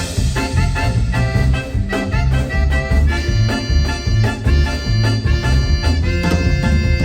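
Live band playing an instrumental break: a quick melodic lead line over a steady bass and drum beat.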